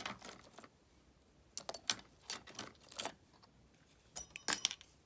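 Small metal clicks and rattles of lock picks and a tension wrench working inside a stainless-steel disc padlock, in several short clusters, with a louder jangling rattle and brief metallic ringing near the end.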